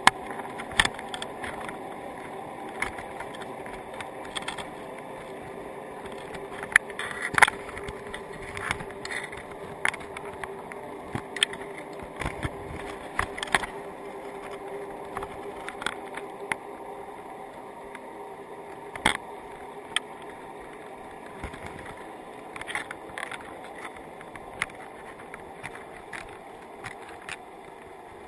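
Crabs crawling over an underwater camera housing and the wire mesh of a crab trap, giving irregular sharp clicks and taps over a steady underwater hum.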